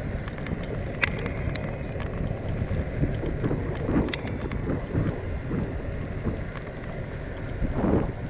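Longboard wheels rolling over asphalt in a steady low rumble, with small ticks from bumps and cracks in the road and wind buffeting the microphone.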